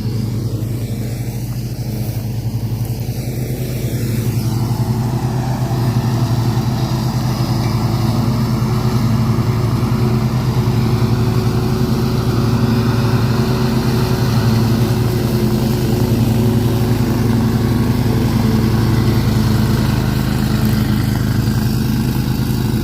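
Mower engine running steadily under load, growing louder about five seconds in and then holding.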